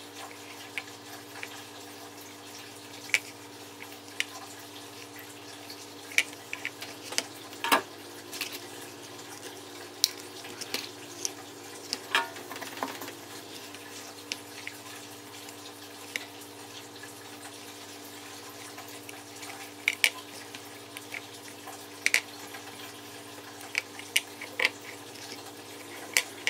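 Desoldering a micro AIO board with a soldering iron and copper solder wick: irregular small clicks and crackles, a dozen or so sharper ticks, over a steady low hum.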